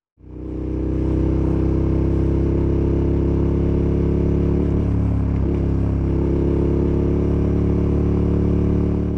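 2022 KTM 1290 Super Adventure S's V-twin engine and exhaust pulling up a hill at a steady engine speed, heard from close behind the rider. The deep, even exhaust note fades in at the start and cuts off at the end.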